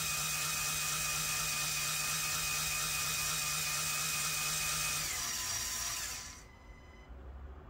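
Lego Control+ electric motor driving a Technic crawler crane's gear train and winch, reeling in the grab: a steady whirring gear whine that drops slightly in pitch and winds down to a stop about five to six seconds in.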